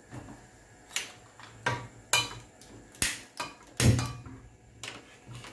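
Kitchen gas lighter clicked repeatedly under a gas hob burner to light it: about six sharp clicks roughly a second apart, the loudest near four seconds in.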